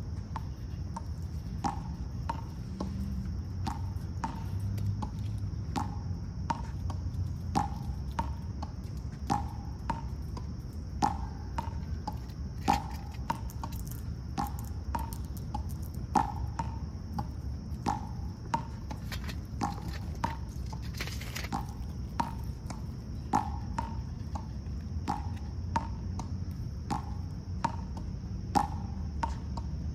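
A short, knock-like animal call repeated at a very even pace, a little more than once a second, over a steady high-pitched insect drone.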